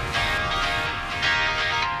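Background music, with new notes starting about twice a second.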